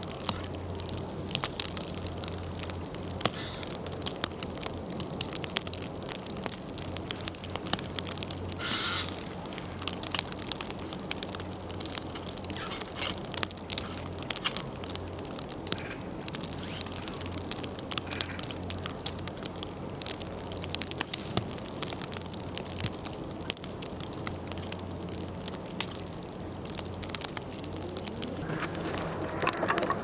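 Small gas canister stove burning with a steady low roar under a dense scatter of small sharp ticks and crackles, with a brief higher sound about nine seconds in.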